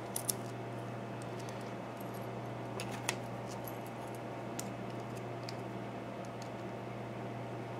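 A few light metallic clicks and taps from handling an American Series 5200 padlock and its key, the loudest about three seconds in, over a steady low hum.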